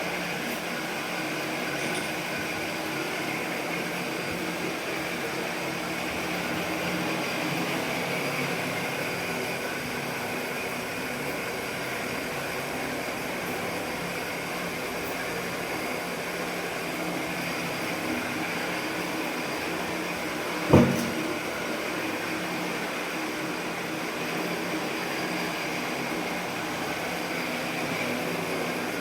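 Steady machine-like hum and hiss, with one sharp knock about three-quarters of the way through.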